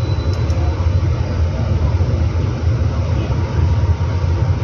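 Steady low rumble of background noise that holds level throughout.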